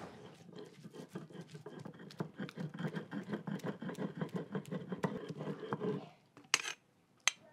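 A stone grinding slab (metate) and hand stone grinding roasted tomatoes and chilies into a wet paste: quick rhythmic back-and-forth scraping of stone over stone and mash. The strokes stop about six seconds in, followed by a couple of sharp clicks near the end.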